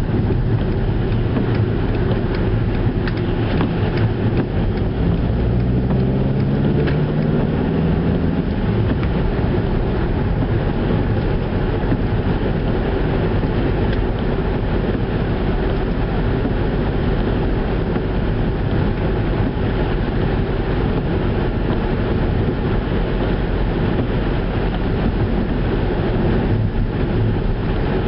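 Skoda Octavia driving: steady road and tyre noise with a low engine hum, the engine note rising briefly about five to eight seconds in as it accelerates.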